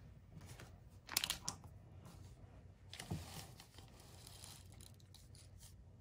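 Clear plastic shipping bag crinkling under a hand, in two brief bursts about a second in and about three seconds in.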